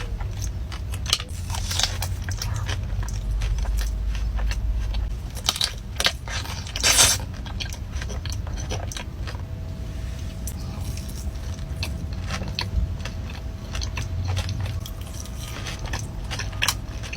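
Close-miked eating of a pastry: bites and chewing with crisp crunches and crackles scattered throughout, the loudest crunch about seven seconds in.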